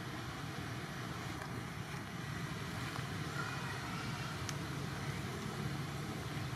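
Steady low background rumble with a light hiss, and one faint tick about four and a half seconds in.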